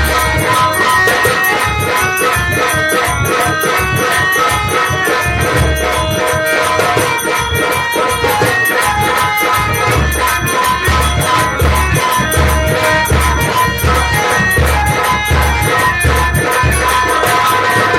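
Nautanki folk music played without singing: a steady deep drum beat under held reedy notes and a fast, dense rattle or jingle.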